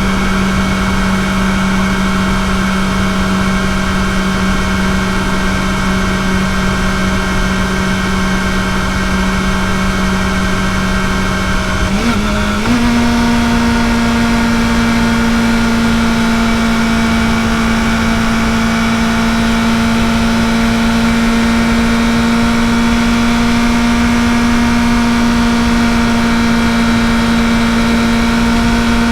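Kawasaki ZX-4RR's inline-four engine with its stock exhaust, running at steady high revs on a ride. About twelve seconds in the note breaks briefly, then settles at a slightly higher steady pitch.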